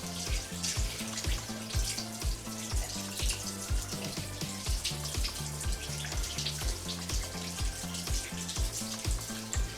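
Background music with a steady beat and a bass line, over the hiss and splash of tap water as a makeup blender sponge is rinsed under it.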